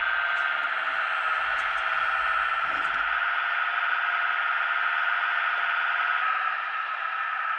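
A 1:16-scale radio-controlled CAT 297D compact track loader model running, giving a steady high hum that drops slightly in level near the end. A low rumble under it stops about three and a half seconds in, as the model stops moving on the bench.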